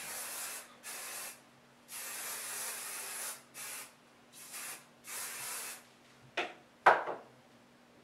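Hairspray sprayed onto a finished updo in six hissing bursts of different lengths, the longest about a second and a half. Two sharp knocks follow near the end.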